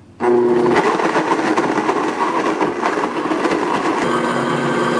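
Blendtec blender motor starting abruptly and running at high speed, chopping frozen bananas in hemp milk into a smooth milkshake.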